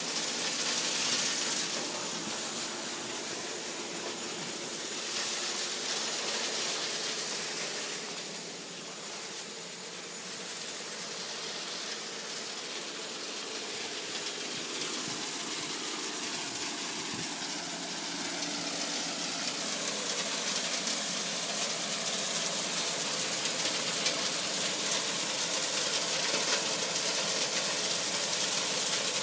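Sand washing machine at work: a steady rush of gushing water over sand, with the low hum of the plant's machinery beneath.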